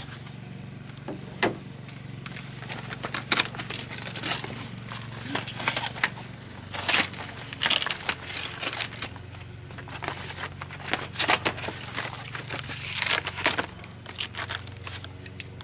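Cardboard box and plastic packaging being handled and unwrapped: irregular crinkling, rustling and scraping, with short sharp crackles.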